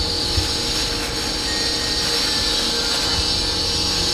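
Steady rushing noise with a sharp click about half a second in and a few fainter clicks after, as small snails are worked open on a boti, a curved iron blade fixed to a wooden board.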